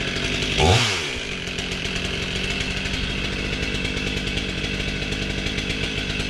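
Stihl chainsaw engine running steadily, with a brief louder burst about a second in where its pitch swoops.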